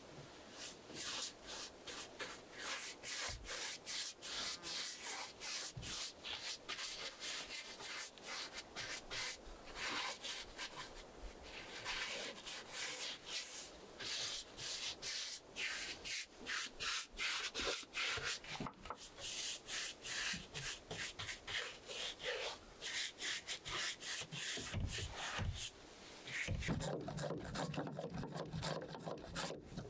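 Paintbrush bristles scrubbing paint onto rough wooden wall boards in quick repeated strokes. Near the end the strokes give way to a lower, different sound as a hand pump garden sprayer is pumped.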